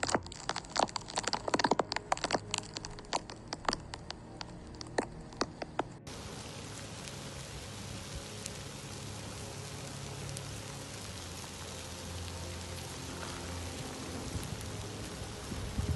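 Lava flow crackling, with many sharp cracks and clinks of cooling crust breaking up. About six seconds in it gives way abruptly to an even, rain-like hiss with faint crackles as a blocky lava front creeps forward.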